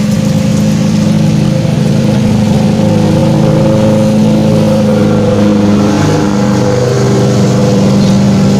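A motor vehicle's engine running close by, loud and steady, with its pitch shifting about six seconds in.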